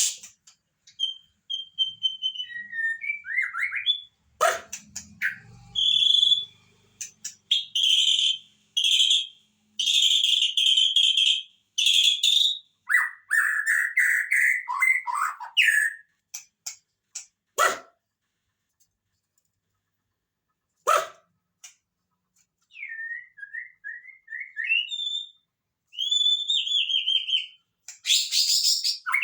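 White-rumped shama (murai batu) singing varied whistled phrases and rapid chirps, with a long pause about halfway through broken by two sharp clicks.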